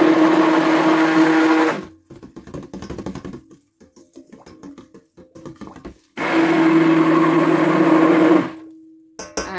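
Handheld stick blender running in thin soap batter in a stainless steel bowl, mixing in the essential oils. It runs in two bursts of about two seconds each, with quieter stirring and scraping between them. The motor winds down after the second burst, and a few light knocks follow near the end.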